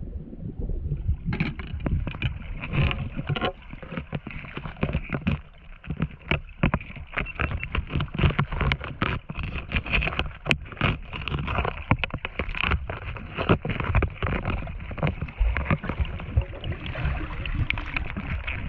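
Underwater sound through a camera housing: a low rumble of moving water, joined about a second and a half in by dense, irregular crackling clicks that continue throughout.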